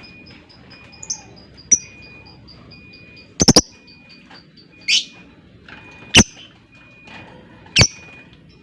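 Lovebirds calling: loud, sharp, shrill single calls every second or two, one a quick triple, over a steady run of soft, rapid high chirps.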